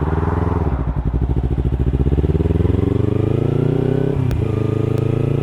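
Kawasaki Ninja 300's parallel-twin engine pulling under throttle, its pitch rising steadily for about three seconds, then briefly dropping just after four seconds as the rider shifts up, and running on at a steady, slightly lower pitch.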